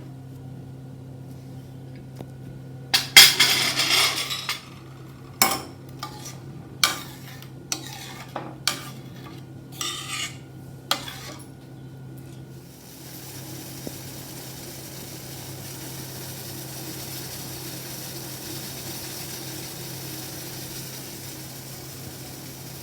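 A spoon knocking and scraping against a pot as a kadha is stirred on the gas: about ten separate clinks, with a longer scrape about three seconds in. After about thirteen seconds the clinking stops and a steady hiss of the kadha boiling takes over.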